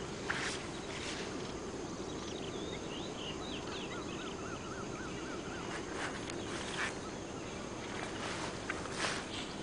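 Birds chirping and a short repeated trill over a steady outdoor background hiss, with a few short clicks or rustles here and there.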